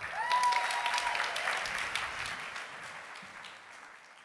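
Audience applauding, with a brief cheer rising over the clapping at the start. The applause fades steadily and dies away near the end.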